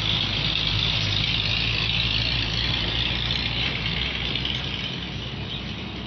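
An engine idling steadily, a low hum under an even high hiss that eases a little after about three seconds.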